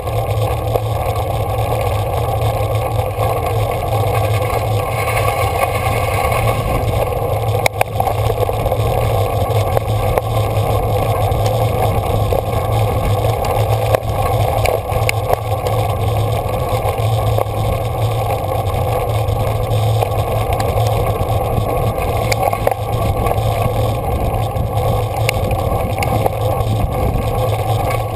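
Steady wind and tyre noise of a road bicycle being ridden, with a couple of brief clicks partway through.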